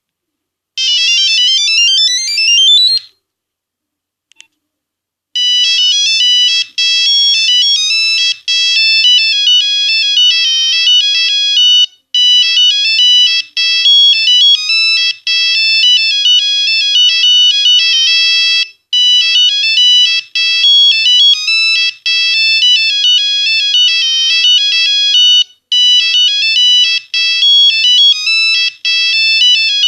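Nokia 1101 monophonic ringtones playing through the phone's small buzzer-like speaker. A short rising sweeping tone comes about a second in; after a pause with one faint click, a simple one-note-at-a-time melody starts and loops about every seven seconds.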